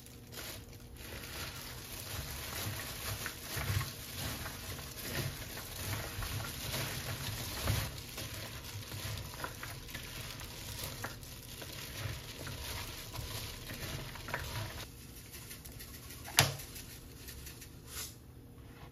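Plastic-gloved hand tossing and squeezing julienned radish with chili flakes and seasoning in a bowl: a steady wet rustle and crackle of glove and radish strips. It quietens near the end, where a single sharp knock stands out, followed by a softer click.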